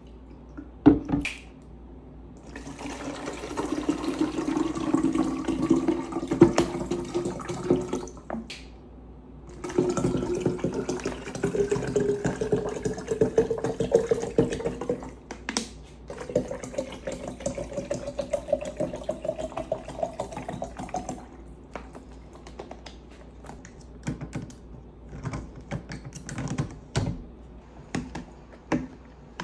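Water filling a large plastic water jug in three long runs, its pitch rising steadily as the jug fills. A few light clicks and knocks near the end.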